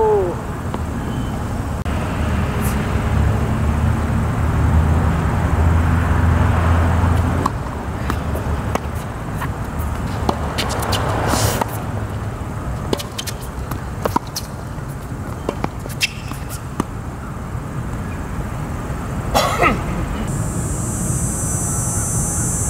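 Tennis ball struck back and forth with rackets during a rally, sharp pops a second or more apart, with shoe scuffs on the hard court. A low rumble runs from about two to seven seconds in, and a steady high hiss starts near the end.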